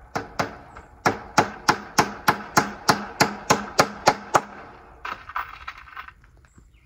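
Claw hammer driving staples through rabbit wire into a 2x4 table frame: a couple of taps, then a steady run of about a dozen ringing blows, roughly three a second. A short rattle of staples in their box follows.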